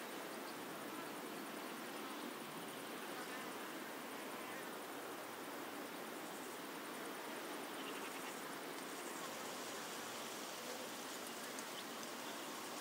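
Steady outdoor ambience: an even hiss with faint insect buzzing.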